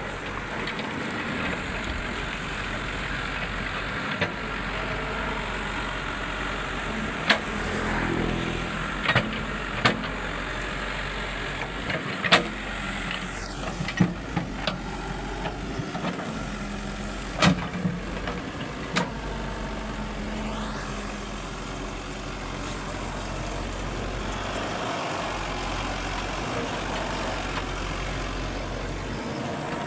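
Excavator's diesel engine running steadily, with a series of sharp knocks and clanks at irregular intervals through the middle of the stretch.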